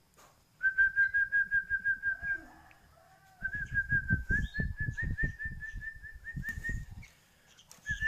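Two runs of rapid whistled notes at one steady, fairly high pitch, about seven notes a second. The first run lasts about two seconds; the second starts about three and a half seconds in and goes on for about three and a half seconds. Soft low thumps sound under the notes.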